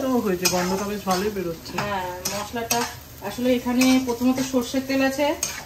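Steel spatula scraping and stirring a thick onion-and-spice masala in a frying pan, the paste sizzling as it cooks down. A wordless voice holds sung notes over it, strongest in the second half.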